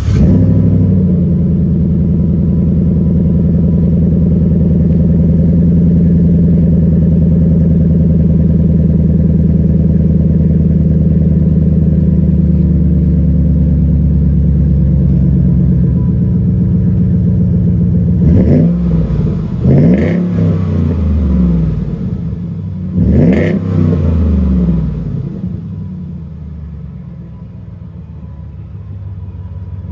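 2013 Ford F-150's 5.0 L Coyote V8 idling through a Flowmaster 50 Series Delta Flow muffler and dual 2.25-inch tailpipes, heard from behind the truck. Three quick revs come about two-thirds of the way in, and then the idle settles to a quieter note.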